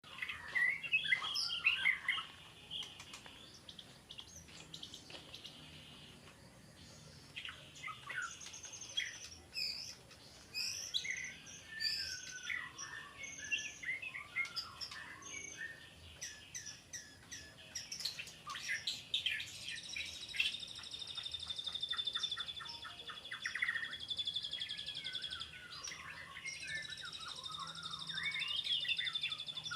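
White-rumped shama (murai batu) singing a long, varied song of whistles, sweeps and chattering phrases. From about two-thirds of the way through, a steady, rapid, high buzzing trill runs under the song.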